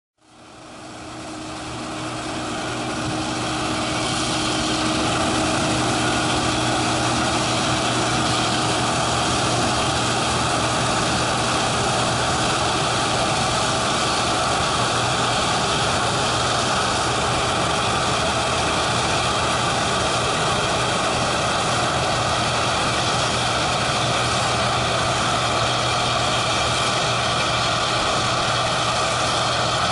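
Large diesel farm machine running steadily at harvest, its engine hum and the machinery's drone fading in over the first few seconds and then holding level.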